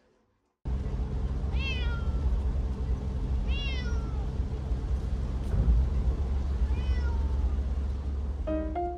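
Adult cat meowing three times inside a plastic pet carrier, each meow short and falling in pitch, over the steady low rumble of a car cabin.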